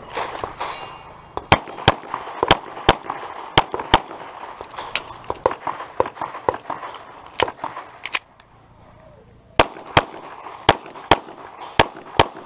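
Walther P99QA pistol firing rapid shots, mostly in quick pairs about half a second apart. A pause of about a second and a half comes around eight seconds in, and then the paired shots resume.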